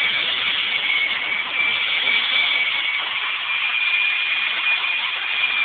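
Handheld electric angle grinder fitted with a polishing disc, running at steady full speed with a constant high whine, as used for polishing plain glass.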